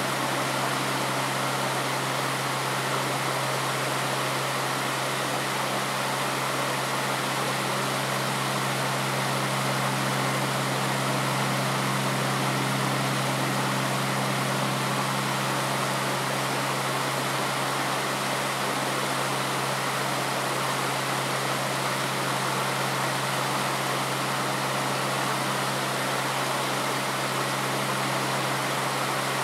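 Stream water running steadily, with a steady low hum underneath.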